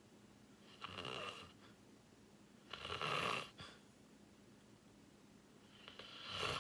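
A sleeping person snoring: three rasping breaths a couple of seconds apart, the middle one the loudest.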